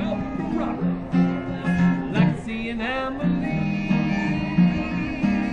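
Acoustic guitar played live, strummed and picked through a tune with a steady bass line.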